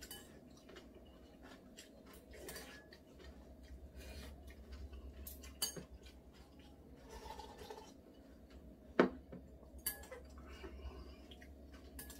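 Chopsticks tapping and scraping against a ceramic noodle bowl, with scattered small clinks. The loudest is a sharp clink about nine seconds in.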